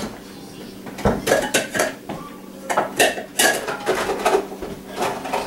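A utensil stirring in a metal pot of pasta, clinking and scraping against the pot in short clusters of knocks that start about a second in and recur to the end.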